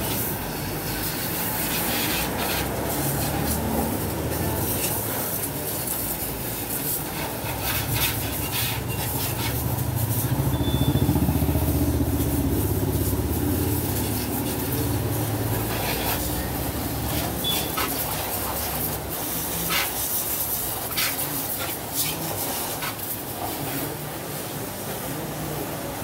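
Garden hose water spraying and splashing on a motorcycle, with scattered clicks and drips. A low rumble swells to its loudest around the middle and then fades.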